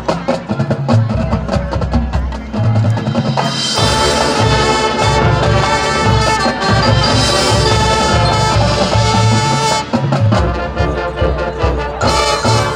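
High school marching band playing: drums and front-ensemble percussion alone at first, then the brass section comes in with full sustained chords about three and a half seconds in.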